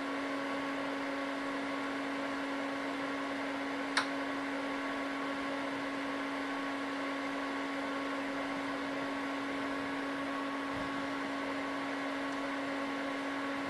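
Cooling fan of an HP 6002A bench power supply running steadily with a constant hum and light hiss. It is working normally after its repair, sounding like a fan rather than the terrible noise it made when faulty. A single short click about four seconds in.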